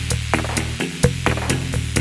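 Background music with a steady electronic beat: bass notes under regular percussion hits.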